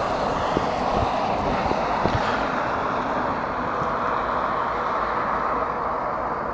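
A vehicle's steady rushing noise, slowly fading as it moves off, with a few faint knocks in the first couple of seconds.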